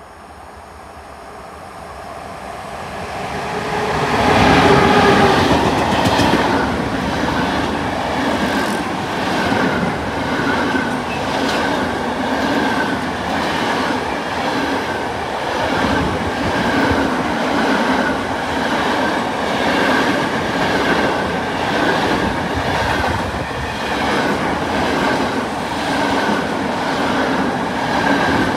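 ET22 electric locomotive approaching and passing at speed, growing louder over the first four seconds, followed by a long container freight train rolling by with a steady, rhythmic clatter of wheels on the rails.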